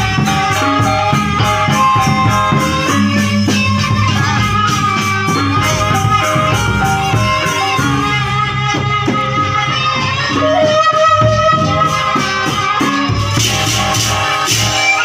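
Live Indonesian traditional ensemble playing: a suling bamboo flute carries a wavering melody over gamelan and barrel drums keeping a steady beat.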